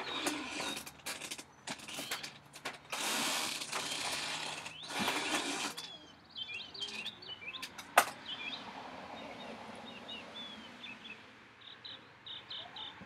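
Outdoor ambience: bursts of rustling noise for the first few seconds, then small birds chirping in short, curving calls, with one sharp click about eight seconds in.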